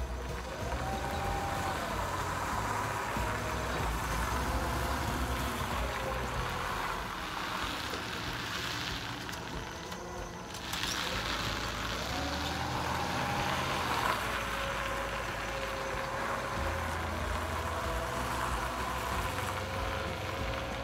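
Forklift engine running as the truck drives and manoeuvres, its note rising and falling several times as it is revved. A hiss swells about eight seconds in and cuts off suddenly around ten seconds.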